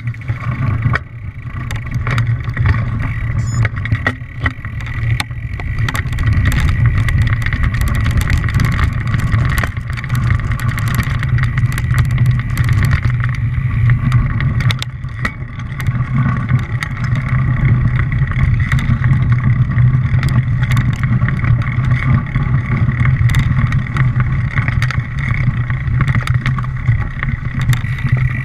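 A small vehicle's engine running at a fairly steady pitch while the vehicle travels over rough ground, with frequent clicks and rattles. The sound eases off briefly twice.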